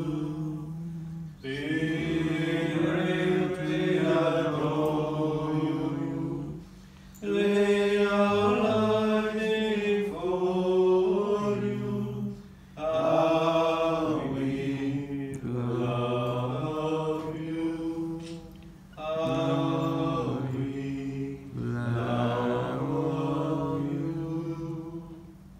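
Slow devotional chant sung by voices, in long phrases of about five seconds each with brief pauses for breath between them.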